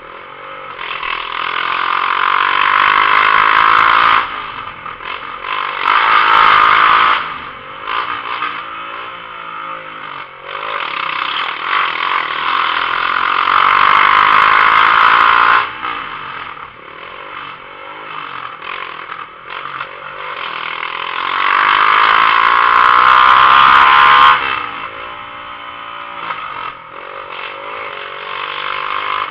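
Motorcycle engine through a bare exhaust pipe with no muffler, revved and accelerated in four long loud bursts with pitch rising and falling, dropping back to a lower running sound between them.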